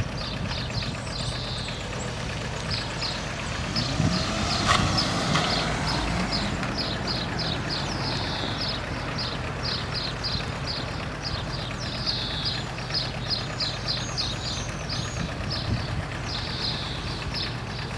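Birds singing, short high chirps repeated in small clusters, over a steady low hum of idling car engines. About four to five seconds in, a brief louder rise in pitch passes through.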